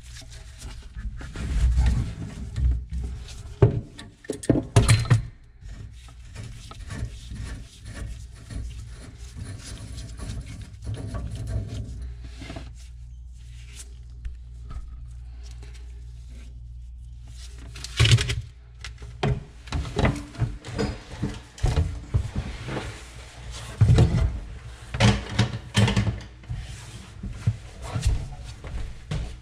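A steel pipe tap being turned by hand with a wrench into a brass drain fitting, re-cutting the threads where a broken pipe nipple was removed. Metal scrapes, clicks and knocks of the tool at work, then several clunks and clatters in the second half as the tap and pliers are put down on the cabinet floor.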